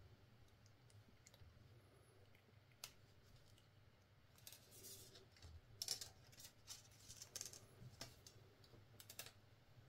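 Faint, scattered clicks and short scraping sounds of small objects being handled, sparse at first and busier from about halfway through, over a low steady hum.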